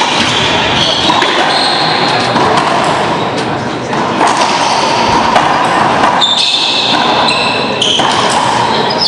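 Racquetball rally in an echoing court: sharp hits of the ball off racquets and walls, with short high squeaks from shoes on the hardwood floor and a murmur of spectators behind.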